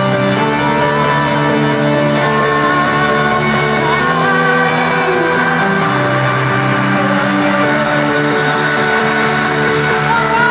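Live trance music played loud through a venue sound system: sustained synth chords that change every couple of seconds, with a woman's voice singing a melody over them at times.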